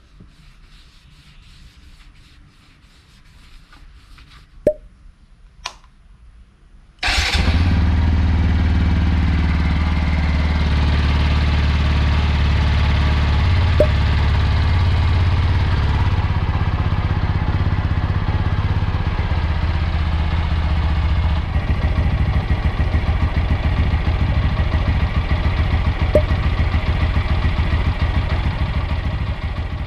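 TVS Apache RTR 200 4V's single-cylinder engine, freshly filled with new oil, catching suddenly after two clicks and then running steadily at idle. The idle turns to a more pulsing beat about two-thirds of the way through.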